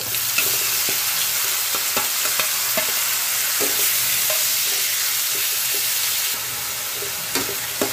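Grated onion sizzling steadily in hot mustard oil in an aluminium kadhai, with a spatula scraping and knocking against the pan as it is stirred in. The sizzle eases slightly about six seconds in.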